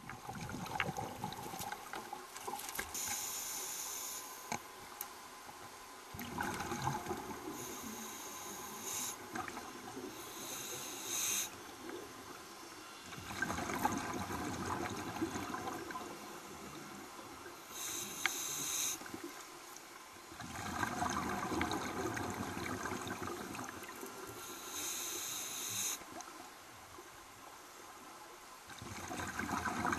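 Scuba diver's regulator breathing underwater: hissing inhalations alternating with bubbling exhalations, about four breaths in a slow, even rhythm.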